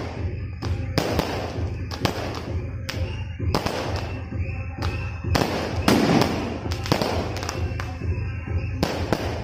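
Aerial fireworks shells bursting overhead in a quick, irregular string of bangs, about two a second, with the loudest and densest burst about six seconds in.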